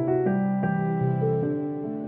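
Slow background music played on a keyboard instrument, with held notes overlapping and a new note or chord starting about every half second.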